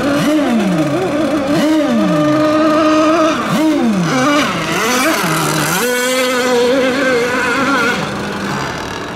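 Several RC racing boat engines running at high revs at once. Their pitch repeatedly drops steeply and then jumps back up as the throttles are eased and reopened.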